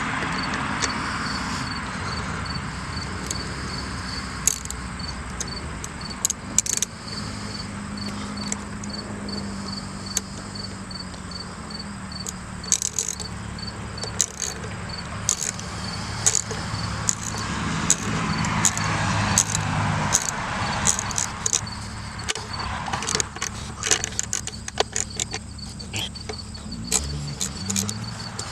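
Hand socket ratchet clicking in short irregular runs while driving self-tapping structural screws into a 4x4 wooden post, over a steady low hum.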